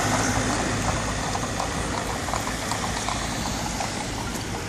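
Passing car traffic: a steady rush of tyre and engine noise as cars drive by, with faint clip-clop of carriage horses' hooves moving away.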